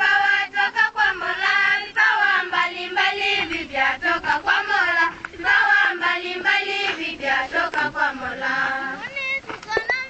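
A group of schoolchildren singing together as a choir, in sung phrases with short breaks between them.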